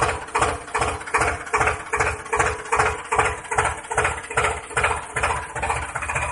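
Tractor engine chugging slowly and evenly at about two and a half beats a second over a steady hum.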